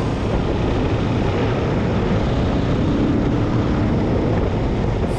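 Steady wind rush on an action camera's microphone over the drone of a riding motorcycle, with a faint steady engine tone in the middle.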